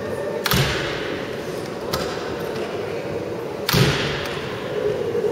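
Two heavy thuds about three seconds apart, with a lighter knock between them, as people shift their weight on a taut transparent membrane; each thud has a deep knock and a short ringing decay. A steady low hum runs underneath.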